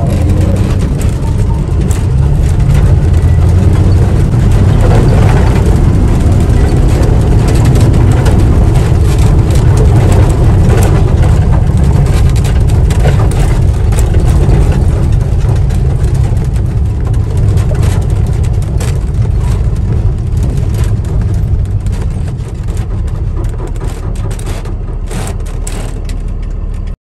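Heavy truck engine running at low speed, heard from inside the cab, with frequent short clicks and rattles as the truck crawls over a rubble-strewn road. The sound cuts off abruptly near the end.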